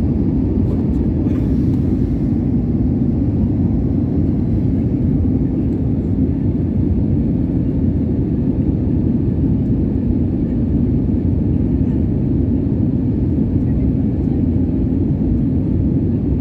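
Steady low noise of an airliner in flight, engines and rushing air heard inside the cabin during the landing approach, even and unchanging throughout.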